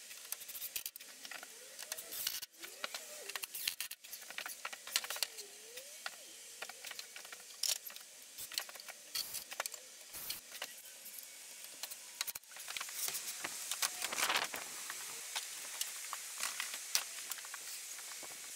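Light clicks, taps and small metallic clatter from hands-on assembly with screws and boards, with a faint, wavering whir of a Ryobi One+ cordless drill/driver driving screws. The sound changes abruptly a few times.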